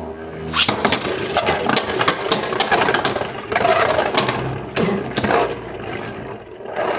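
Beyblade Burst spinning tops launched into a plastic stadium with a sharp snap about a second in, then spinning and clashing in a dense run of clicks and knocks that thins out near the end.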